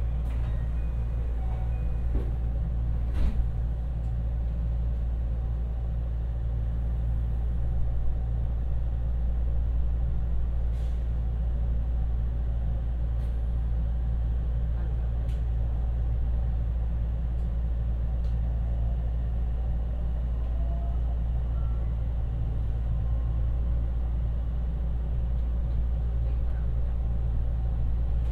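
Inside a JR West 225 series electric train: a steady low hum as it stands at the platform, then it pulls away and gathers speed, with a few sharp clicks and a faint rising whine.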